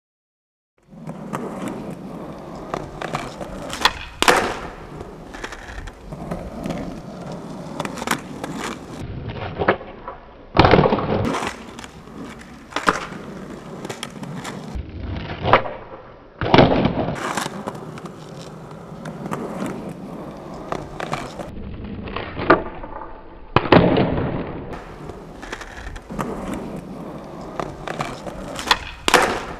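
Skateboard wheels rolling on concrete paving, starting about a second in. Several sharp clacks break the rolling as the tail pops and the board lands on flat-ground tre flip body varial attempts.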